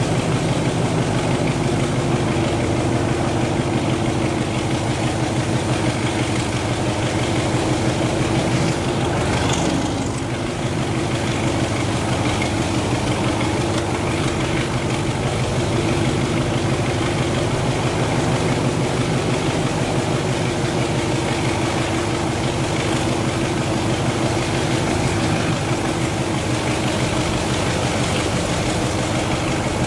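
Diesel locomotive engine running steadily, heard from the train it is hauling, with a brief dip in loudness about ten seconds in.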